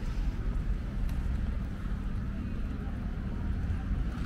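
Outdoor urban ambience: a steady low rumble of distant traffic, with no single event standing out.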